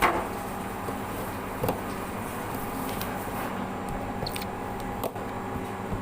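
A steady machine hum with a few light knocks and clicks: one at the start, one under two seconds in and one about five seconds in.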